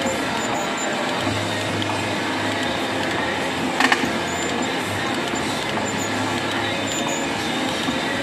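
Milling machine spindle driving a tap into a bolt hole in a thick steel ring, threading with cutting oil: a steady mechanical running noise with a low hum, and one sharp metallic click about four seconds in.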